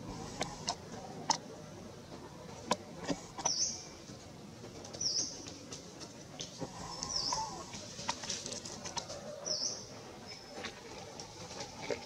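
A small bird chirping: four short, high chirps a second or two apart, over scattered clicks and crackles like dry leaves being handled.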